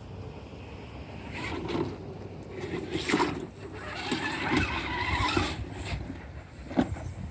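FTX Kanyon electric RC rock crawler driving through a rock pool, churning and splashing the water in irregular bursts over a low steady rumble.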